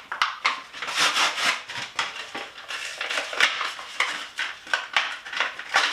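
JB Weld epoxy package being unpacked by hand: an irregular run of crinkling, tearing and rustling packaging.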